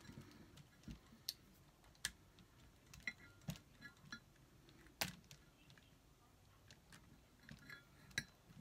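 Faint, scattered small clicks and taps of a nut driver and plastic and metal parts as a wheel is fastened onto a small RC truck's axle, the sharpest click about five seconds in.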